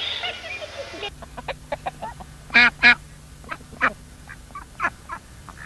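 A toy's electronic tune for about the first second, then a flock of white domestic ducks quacking in short scattered calls, with two loud quacks close together near the middle.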